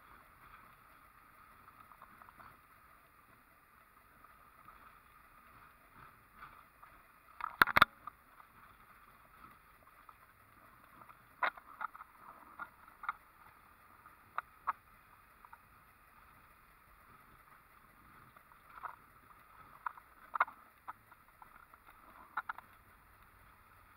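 Faint steady road noise heard from inside a vehicle driving slowly over an unpaved dirt road, broken by sharp knocks and rattles as it goes over bumps; the loudest is a double knock about eight seconds in, with scattered clicks around twelve to fifteen seconds and again near twenty to twenty-two seconds.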